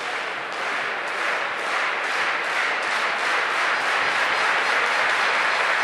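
Arena crowd clapping with a dense wash of crowd noise, growing a little louder.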